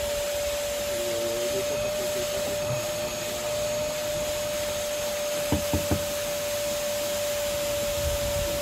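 Vacuum cleaner running steadily with a constant whine, cleaning a car's interior, with three quick knocks a little over halfway through.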